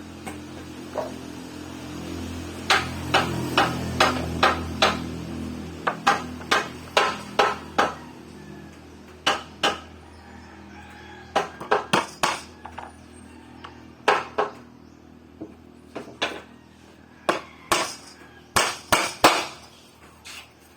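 Repeated sharp hammer blows on wood, coming in quick runs and then as scattered single and double strikes. A low steady hum lies underneath for the first six seconds, then stops.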